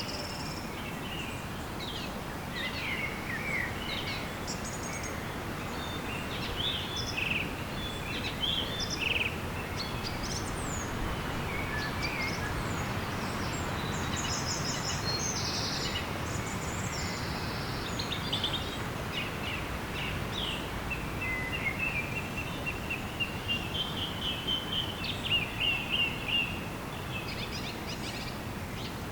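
Several wild birds chirping and singing over a steady background hiss. Near the end one bird gives a rapid run of repeated notes, the loudest calls in the stretch.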